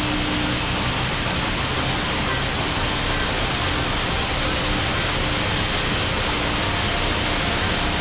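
Steady static hiss from a badly tuned analogue TV reception. A faint low steady tone underneath fades out about half a second in and comes back later.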